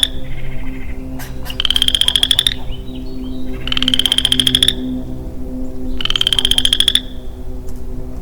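Male Western chorus frog calling: a rising, rapidly pulsed trill of about a second, repeated three times about two seconds apart, with the tail of another trill right at the start.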